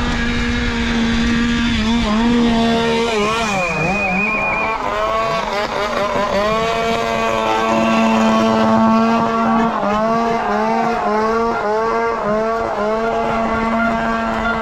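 Downhill mountain bike's rear freehub buzzing as it coasts down a dirt race track. The pitch dips and climbs back several times as the speed changes, and it breaks off briefly a few times, over rumble from the tyres on dirt and wind on the camera.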